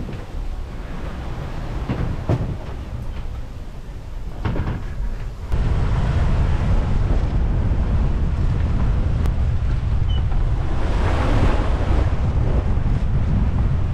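Rushing water from a sailboat's hull and bow wave, with a few knocks in the wheelhouse in the first seconds. About five seconds in, heavy wind rumble on the microphone comes in suddenly and stays. Near the end there is a hissing surge of spray.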